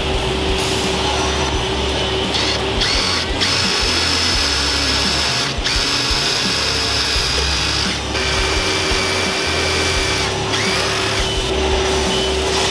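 Makita cordless impact driver whining in bursts as it drills pilot holes and drives screws into pine boards, over a steady low workshop hum.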